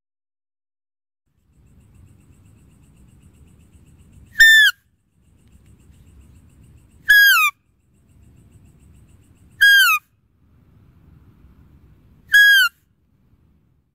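A deer-calling sound: four short, high, whistle-like calls, each falling in pitch, spaced about two and a half seconds apart. Before each call there is a faint low rumble.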